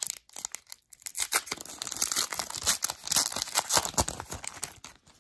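Foil wrapper of an Upper Deck hockey card pack being torn open and crinkled: a dense run of quick crackles, after a few short bursts in the first second.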